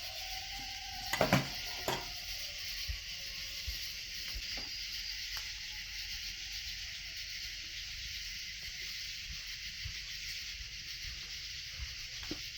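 Recorded night ambience of coyotes howling faintly in the distance: a drawn-out howl near the start and another from about five seconds in, over a steady chorus of night insects. Two sharp knocks come in the first two seconds.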